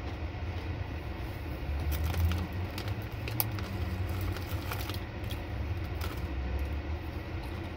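Chip bag crinkling as a hand reaches into it, with crunchy chewing of thin potato chips. Scattered crackles come from about two seconds in, over a steady low hum.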